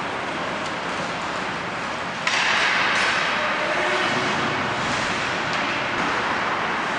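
Ice hockey play on a rink: a steady hiss of skates on the ice with a few sharp clacks. About two seconds in, a louder scraping hiss comes in suddenly and holds.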